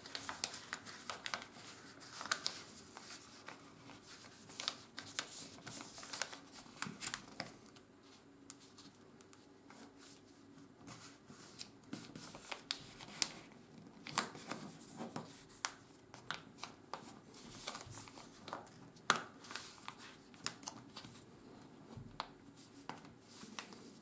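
A sheet of 80 g/m² office paper being folded by hand: irregular rustles, soft scrapes and small crackles as fingers press the folds and run along the creases to sharpen them.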